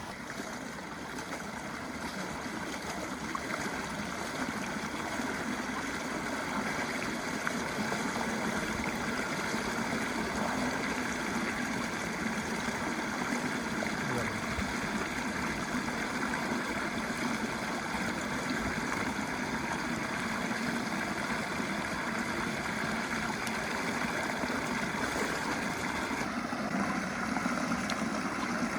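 A small engine or motor running steadily, without changes in speed.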